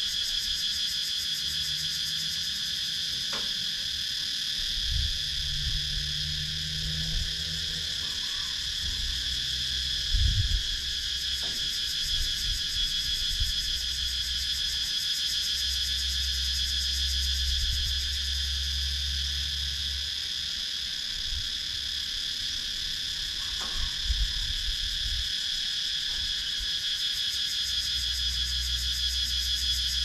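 Cicadas chorusing in a steady, unbroken high drone. A low rumble comes and goes underneath, with two brief soft thumps, one about a third of the way in and one near the end.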